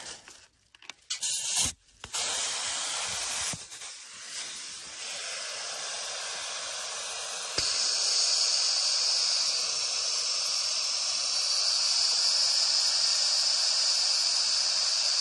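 Compressed air from an air tank hissing steadily into a flat tire's valve stem, after a few clicks as the chuck is fitted, turning louder and higher about halfway through. The tire is not yet filling: the air seems to be pouring right out as soon as it goes in.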